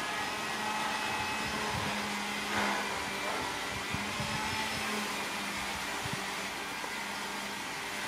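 A steady, machine-like whirring hum with a constant low tone, and a few soft low thumps about two, four and six seconds in.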